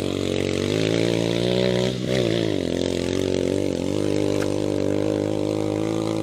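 KRY200 dirt bike engine running while riding at fairly steady revs. The revs dip and pick back up about two seconds in, and briefly again near four seconds.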